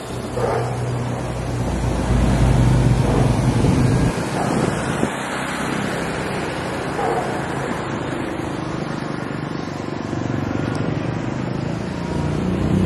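Outdoor street ambience with road traffic passing; a low vehicle rumble is loudest in the first four seconds, then a steadier traffic hum.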